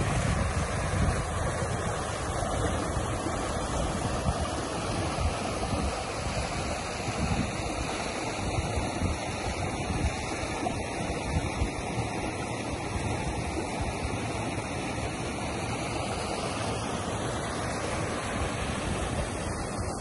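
River water rushing through rocky channels and over small cascades, a steady rush. Wind buffets the microphone, most in the first few seconds.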